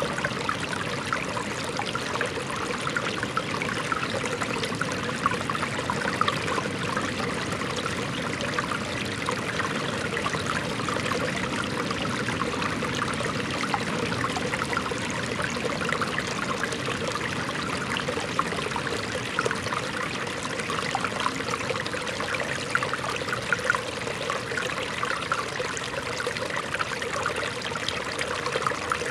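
Shallow rocky stream flowing and trickling over stones: a steady babble of many small splashes.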